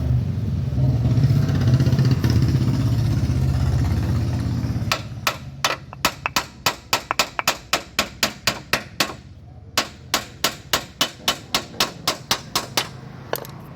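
A low steady drone like a running engine, then, about five seconds in, a long run of sharp metallic taps, about three to four a second with a brief pause midway: hammering on a car's suspension part while it is fitted.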